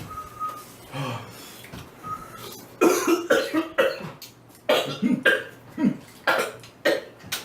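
A man coughing in a fit, several harsh coughs coming in clusters from about three seconds in, his throat burned by extremely spicy noodles.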